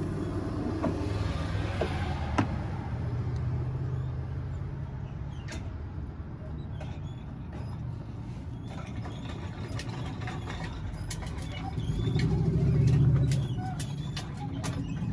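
Used motor oil draining from a car's oil pan in a thin stream into a plastic drain pan, a faint steady pouring, over a steady low hum that swells about twelve seconds in. A few small clicks.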